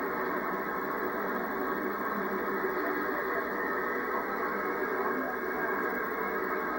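Steady, thin hiss and rumble of an old videotape's soundtrack played back through a television speaker.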